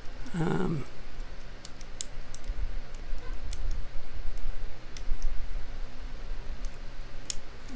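Lock pick and tension wrench working the pins of a padlock: faint, irregular small metallic clicks as the pins are lifted and set, over a low rumble of handling noise.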